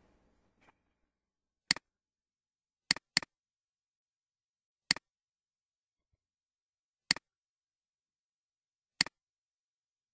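Six sharp computer mouse clicks at irregular intervals, two of them in quick succession about three seconds in.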